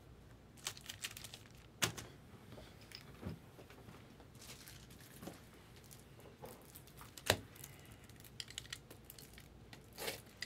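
Scattered crinkling, rustling and small clicks of trading-card packaging being handled on a table, with a few sharper taps, the loudest about seven seconds in.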